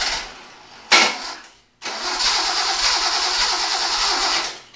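Datsun 260Z inline-six being cranked on the starter without catching: one spell of cranking dies away, a single brief sharp sound comes about a second in, then it cranks again for nearly three seconds and stops. The engine is fuel-starved and is being primed with gasoline poured in by hand.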